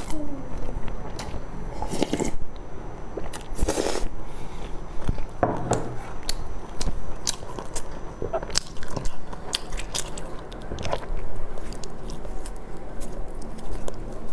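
Close-miked eating: biting and chewing of a sesame-topped cream bun, with many small wet mouth clicks and a few louder bites.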